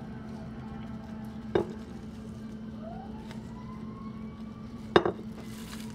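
A brush taps twice against a ceramic plate, about a second and a half in and again near the end, over a steady low hum. A faint distant siren rises in pitch in the middle.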